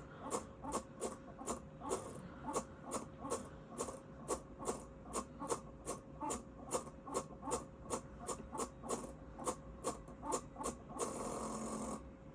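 Lenovo Y50-70 laptop making a strange repeating click, about three sharp clicks a second, over a faint steady tone. Near the end the clicking gives way to about a second of hiss, then stops.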